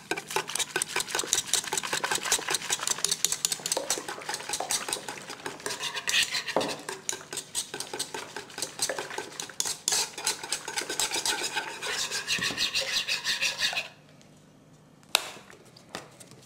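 A utensil rapidly stirring a milk-and-egg mixture in a pot, in quick, even strokes that clink against the pot. The stirring stops about two seconds before the end, followed by a single click.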